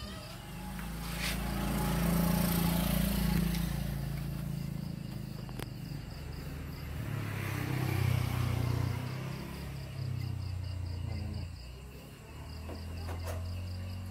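Crickets chirping in a fast, even pulse, about four a second, over a low rumble that swells and fades several times, with a few faint clicks.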